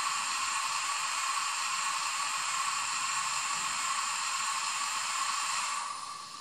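Sound module of a Frateschi G12 model diesel locomotive playing its engine sound through a tiny speaker: a steady, thin hiss with no bass, which fades out about six seconds in.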